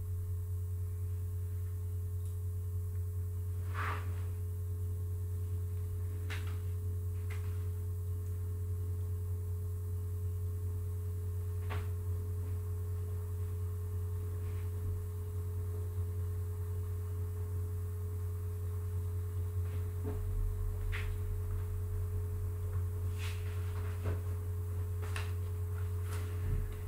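Steady low electrical hum with a faint higher steady tone above it, and a few faint scattered clicks.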